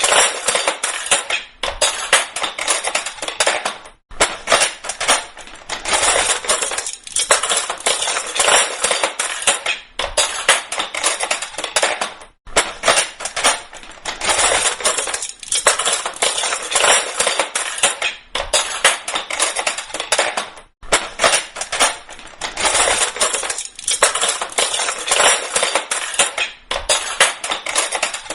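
Metal kitchen cutlery falling and clattering in repeated bursts, several seconds of rapid jangling clinks each, separated by short pauses.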